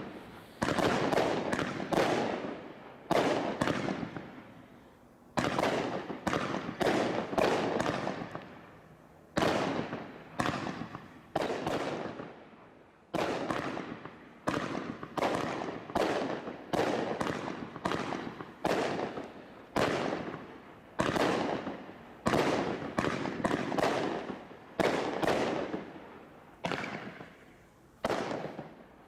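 Firework barrage from a cake-style barrage pack: a long string of sharp shell bursts, each trailed by a crackling tail that fades over about a second, coming at one to two a second with a few short lulls between volleys.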